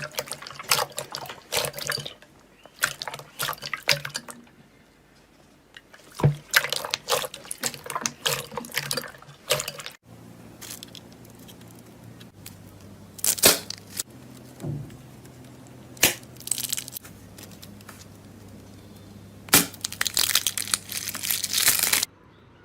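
Slime being squeezed and worked by hand: clusters of wet, sticky clicks, crackles and pops with short pauses between them.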